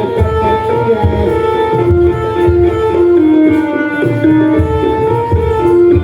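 Javanese jaranan music from a live ensemble: hand-drum strokes under a melody of held notes that step up and down.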